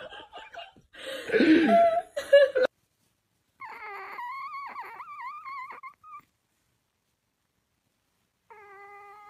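A short, loud burst of a person's voice about a second in. Then a kitten mews in a thin, wavering cry for about two and a half seconds, and a steadier, lower cry starts near the end.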